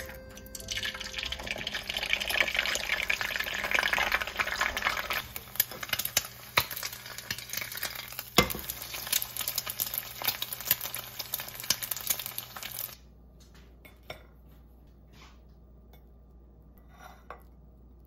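An egg cracked into hot oil in a nonstick frying pan, then frying with a loud sizzle that is strongest for the first few seconds and settles to a softer crackle with scattered pops. The sizzle cuts off about two-thirds of the way through, leaving only faint light taps.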